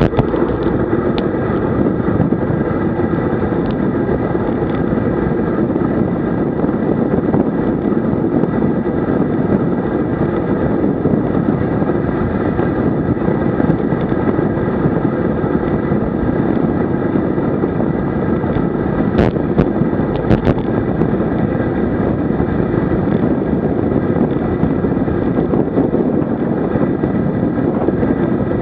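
Steady wind rush on the bike-mounted camera's microphone as a road bicycle rides at speed, mixed with tyre and road noise. A few brief knocks come about twenty seconds in.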